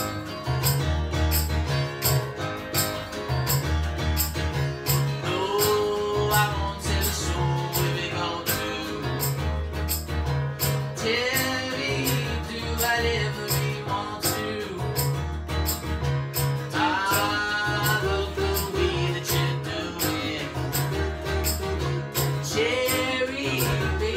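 Acoustic guitar strummed steadily with a keyboard playing pulsing low bass notes underneath, and a voice singing phrases every few seconds.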